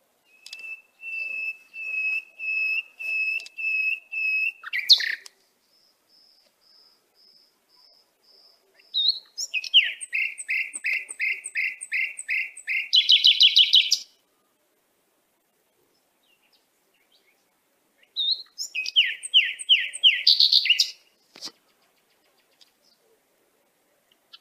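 A bird singing in phrases. First comes a run of even, steady whistled notes, then softer high notes, then a quick series of falling notes that speeds into a fast trill. After a pause of a few seconds there is a shorter phrase of the same falling notes.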